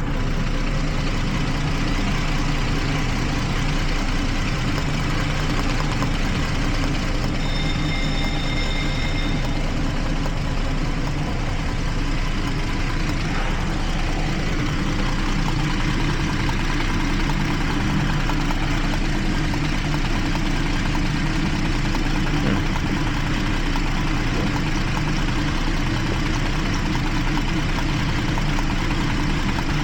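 2012 Jeep Liberty V6 engine idling steadily with a misfire on cylinder 1. A brief thin high tone sounds about seven seconds in.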